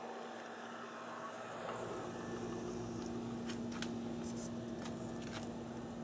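Steady machine hum with a constant low tone, a deeper rumble coming in about a second in, and a few light clicks in the second half.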